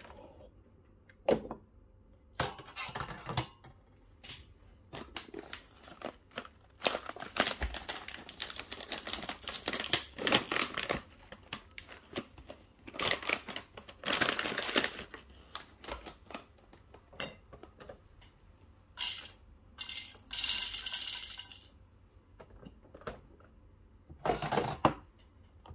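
Irregular clinks, rattles and rustling from handling an espresso machine's metal portafilter and coffee, in bursts of a second or two; the longest lasts about four seconds, some seven seconds in.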